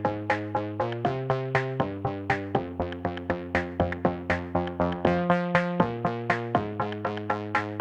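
Electronic background music: a quick, steady pulse of synthesizer notes, about four a second, over held chords.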